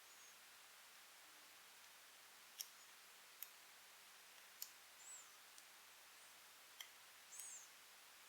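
Faint, scattered clicks, about five over several seconds, with two brief high squeaks: a steel dimple pick working the pins of a dimple-lock euro cylinder during picking.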